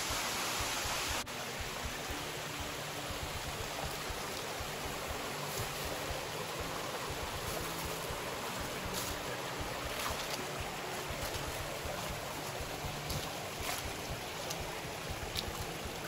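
Steady rush of falling and flowing water from a small waterfall and its creek. The level drops abruptly about a second in and the rush carries on quieter, with a few faint ticks scattered through it.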